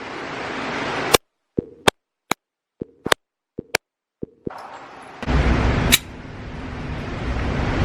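A quick run of about ten sharp gunshot cracks at uneven spacing over some three seconds, with dead silence between them. About a second in, a rising hiss cuts off before the shots. After the shots comes a loud low rumbling noise with one more sharp crack in it.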